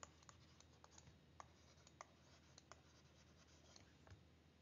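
Near silence with faint, scattered scratches and ticks of a pen writing.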